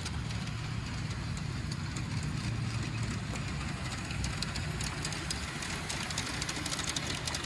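G-scale model train running on garden railway track: a steady low motor hum with light, scattered clicking from the wheels on the rails.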